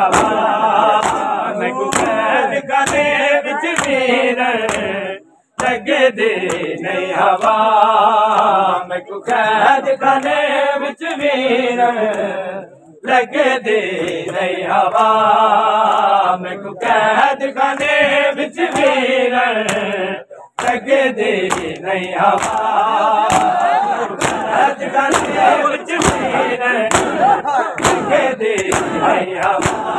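A crowd of men chanting a noha in unison, over a steady rhythm of hand-on-chest slaps (matam). The sound drops out briefly three times, about 5, 13 and 20 seconds in.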